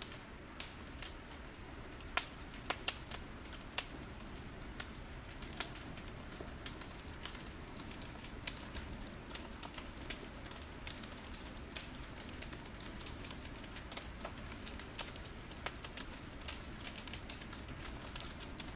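Burning firewood crackling: irregular sharp snaps and pops over a steady low background, with a few louder snaps a couple of seconds in.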